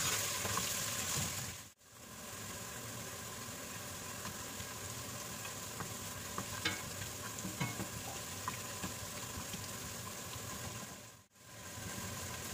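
Chopped garlic and ginger sizzling in hot oil in a stainless steel pot, stirred with a wooden spoon, with a few light clicks and pops. The sound drops out briefly twice, about two seconds in and near the end.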